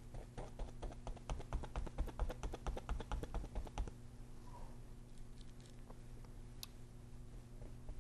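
Palette knife tapping rapidly against a stretched canvas as paint is dabbed on, about six or seven taps a second for nearly four seconds, then a few scattered taps.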